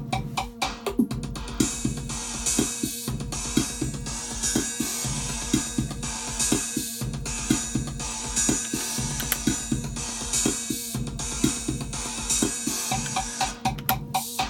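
Elektron Machinedrum drum machine playing a looped electronic beat of kick and hi-hat over a held low bass note. A bright hissing wash comes in about a second in and drops out shortly before the end, leaving the sparser clicking pattern.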